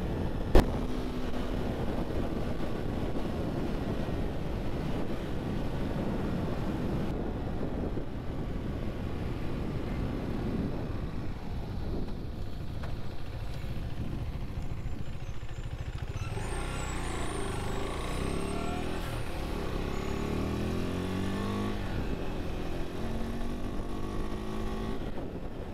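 Husqvarna Svartpilen 401's single-cylinder engine running under way, with wind and tyre noise. In the last third it accelerates, its pitch rising again and again through several gear changes. A sharp click about half a second in.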